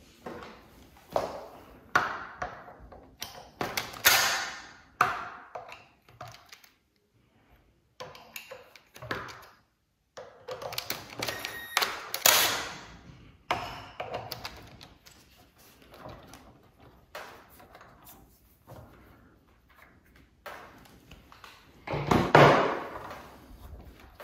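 Hands working on a DeWalt DW717 miter saw's belt drive make a string of knocks, clicks and clunks on its housing. About halfway through, a cordless driver runs for a couple of seconds on the pulley bolt. A louder burst of clatter comes near the end.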